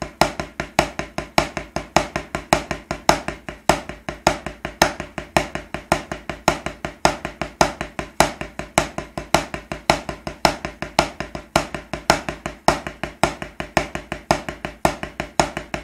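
Wooden drumsticks striking a rubber practice pad in a right-left-left sticking (a single stroke followed by a double stroke), played as an even, quick stream of taps with some strokes louder than others in a repeating pattern.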